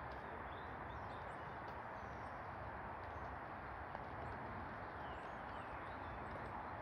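Steady outdoor background noise, with faint bird chirps now and then.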